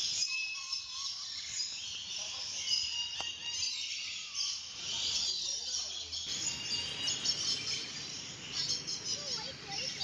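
Many birds chirping and twittering together in a dense, high-pitched chorus, with background noise growing louder about six seconds in.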